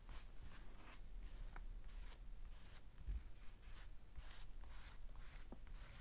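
Soft, irregular rustling and light scraping of paper as dried flower petals, stuck where they dried onto an eco-printed sheet, are picked and peeled off by hand.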